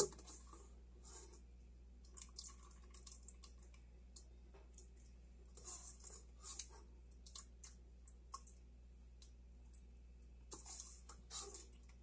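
Faint wet clinks and scrapes of a spoon working in a pot of boiled peaches in syrup, coming in a few short clusters over a low steady hum.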